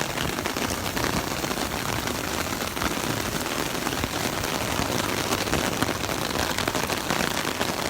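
Heavy rain falling on an umbrella overhead: a dense, steady patter of drops.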